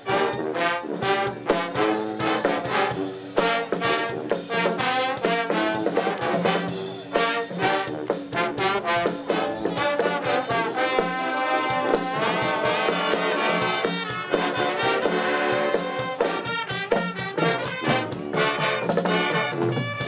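College pep band playing: brass section of trumpets and trombones over a steady drum beat.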